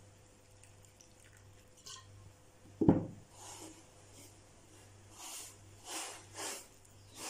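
Marsala trickling from a bottle into flour, then a single loud thump about three seconds in as the glass bottle is set down on the wooden pastry board. Hands then rub and squish the flour and wet dough in a run of soft rustles.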